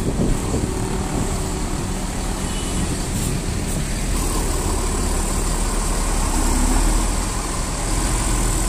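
Mercedes-Benz coach's diesel engine running as the bus pulls away and drives past, a steady low rumble that grows a little louder about seven seconds in, amid road traffic noise.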